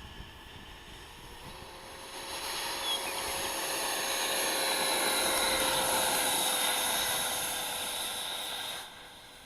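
Electric ducted-fan motor of a Freewing F-5 RC model jet at takeoff power, a steady whooshing whine that swells about two seconds in, holds level, and drops off sharply near the end.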